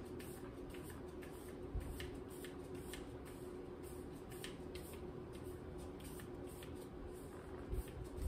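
Faint scraping and light clicks of plastic fondant smoothers worked around the edge of a fondant-covered cake, over a steady low hum. A dull thump comes about two seconds in and another near the end.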